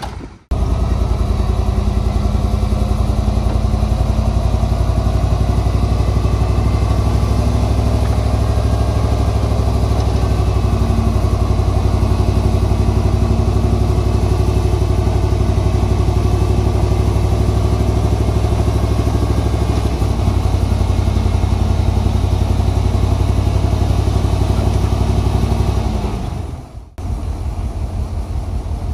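Heavy diesel engine of earthmoving machinery running steadily at a constant speed, with a low, even note. The sound drops out briefly just after the start and again near the end.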